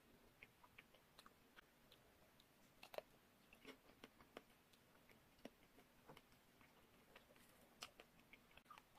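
Faint close-up chewing of a chocolate-coated ice cream bar: soft mouth sounds with scattered small crackles and clicks from the chocolate shell. A sharper crack comes about three seconds in and another near the end.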